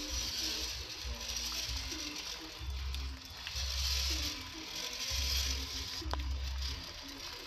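A 1/10-scale RC Jeep Wrangler Rubicon crawler's motor and gears whirring as it drives through mud and puddles, with a couple of sharp clicks.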